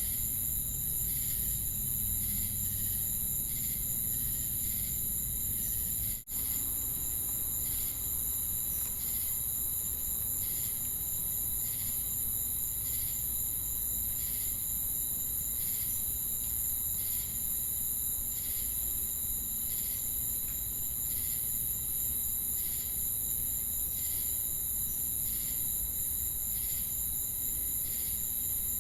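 Chorus of crickets and cicadas: a constant high-pitched shrill drone with a chirp repeating about once a second. There is a momentary dropout about six seconds in.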